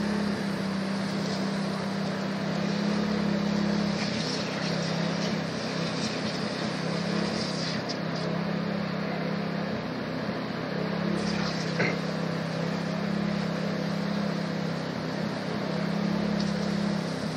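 Small engine of a motorised pesticide spray pump running steadily, a constant hum.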